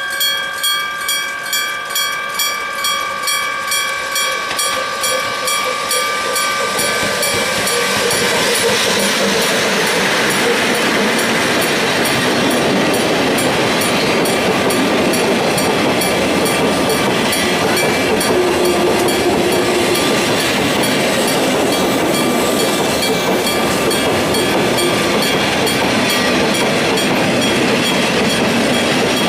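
An electric-bell level crossing warning bell strikes steadily, about two ringing strokes a second. From about seven seconds in, a freight train of cement tank wagons passes over the crossing. The steady rumble and clatter of its wheels on the rails drowns out the bell.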